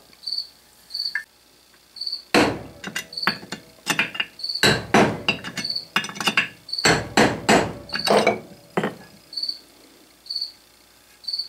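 Hammer tapping a brass drift against the steel scroll of a 6-inch three-jaw lathe chuck: a run of sharp metallic taps in quick clusters, each ringing briefly. This is driving the close-fitting bevel-gear scroll out of the chuck body.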